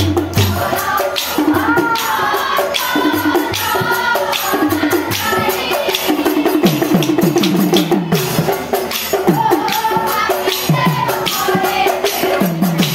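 Assamese Nagara Naam devotional group singing: a lead voice with a chorus of women, over steady hand clapping and jingling percussion.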